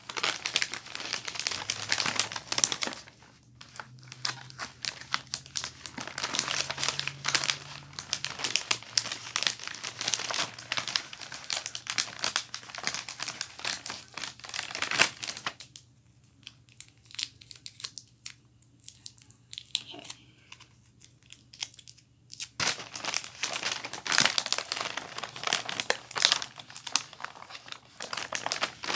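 Wrapping paper crinkling and rustling as a present is wrapped by hand, with a quieter spell of several seconds a little past halfway.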